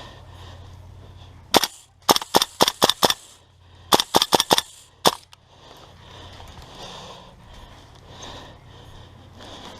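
Airsoft guns firing: about a dozen sharp cracking shots, mostly in two quick runs about two and four seconds in, with a single shot before and after.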